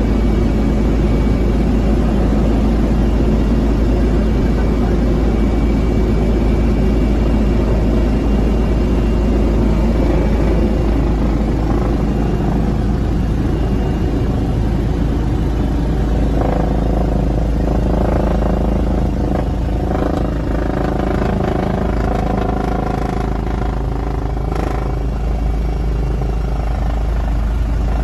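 Helicopter heard from inside its cabin: steady, loud rotor and engine noise with a heavy low rumble. From about halfway through, a set of steady engine tones comes through more clearly.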